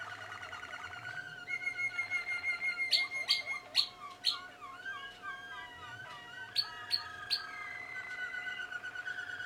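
Young Malinois Waterslager canaries singing a continuous song of rapid trills and rolling, gliding phrases. Sharp clicking notes cut in four times about three seconds in and three times about six and a half seconds in.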